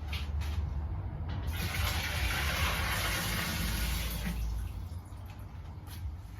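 Water running into a homebrew brewing kettle to leak-test a newly fitted heating element; the flow is strongest from about a second and a half in until about four and a half seconds in.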